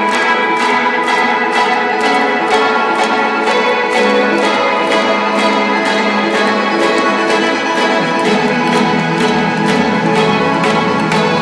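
Synth-pop band playing live through a concert PA: layered, bell-like synth chords over a steady beat of about four hits a second, loud throughout.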